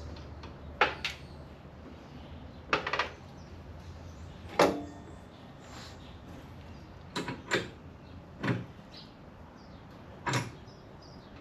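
Irregular short metal knocks and clunks, about eight of them, some ringing briefly, as a motorcycle rear wheel is shifted and lined up so the axle hole meets the wheel hub.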